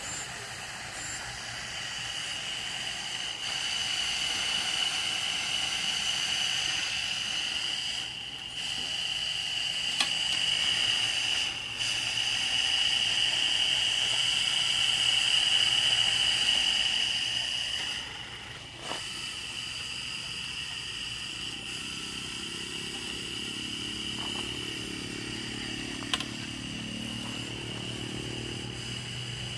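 Small electric motor on a homemade RC tractor running with a steady high whine that dips briefly a few times; a lower hum joins in for the last third.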